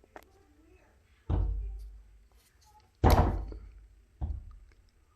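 Three dull knocks on the door and frame while a hinge screw is driven back into its toothpick-packed hole. They come about a second and a half apart, and the middle one is the loudest.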